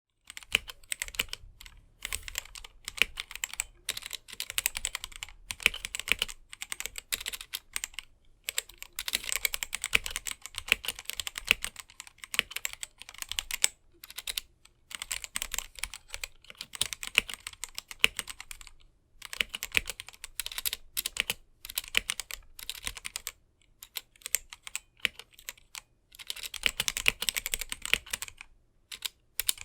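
Typing on a GamaKay/Womier K87 mechanical keyboard with stock, unlubed Gateron Black linear switches: runs of fast key clacks broken by short pauses.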